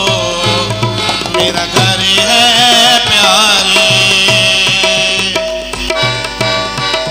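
Harmonium and tabla playing a Christian ghazal: held harmonium notes over a steady tabla beat.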